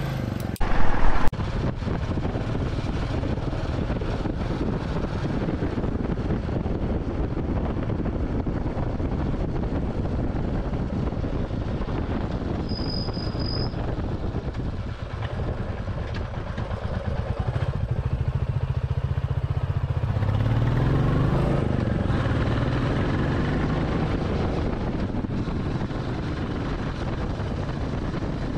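Royal Enfield Classic 350's single-cylinder engine running as the motorcycle rides along, with road and wind noise. Its pitch rises about two-thirds of the way through as it accelerates, and there is a short loud knock about a second in.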